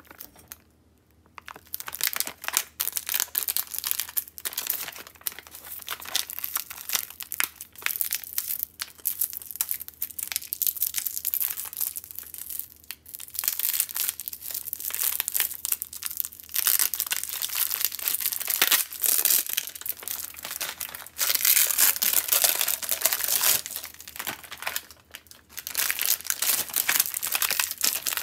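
Clear plastic film crinkling and crackling as it is picked at and peeled off a frozen block of ramen, a dense run of small crackles with a short break about a second in and another near the end.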